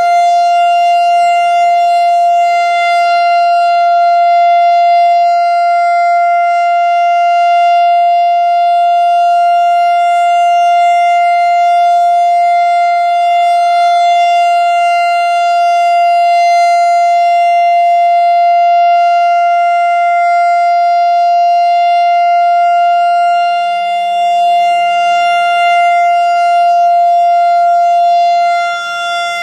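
Analog Whelen WS-3016 electronic outdoor warning siren sounding its Alert signal: one loud, steady tone held without change in pitch, dipping a little in level near the end. The siren sounds strong and healthy.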